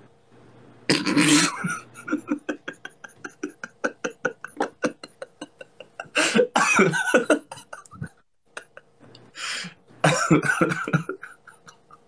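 A man laughing hard: a loud burst, then a long run of short, quick laughs at about five a second, broken by further coughing bursts.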